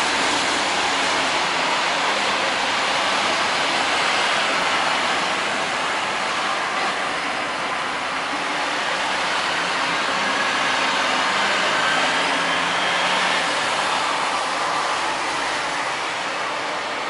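Steady city traffic noise on a rain-wet road: a continuous hiss of tyres on wet asphalt as vehicles, among them a semi-trailer truck, pass by.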